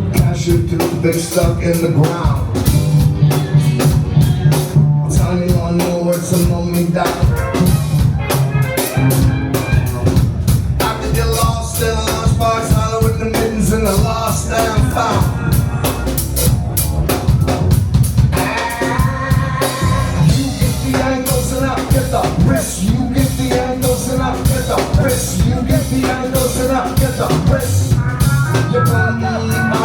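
A live band playing an instrumental passage, with a busy drum kit and a steady bass line.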